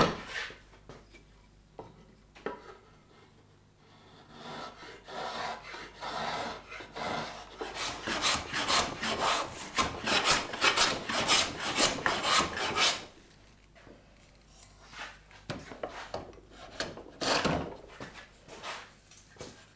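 Hand plane scraping over a wooden board in a long run of quick back-and-forth strokes, taking off shavings, with a pause and a few more strokes near the end. It opens with a sharp knock.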